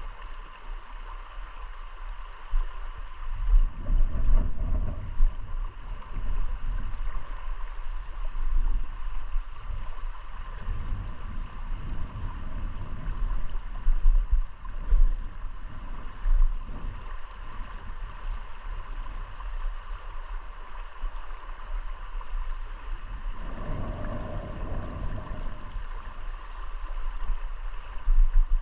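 River current running steadily over a shallow, rippling stretch, with irregular low rumbling surges now and then.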